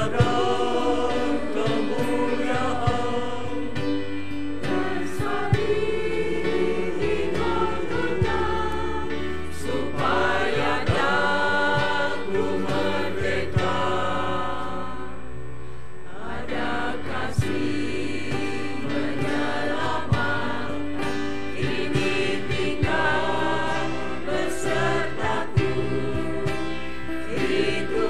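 Church choir singing a hymn in parts, with sustained held chords; the singing eases off for a moment about halfway through, then swells again.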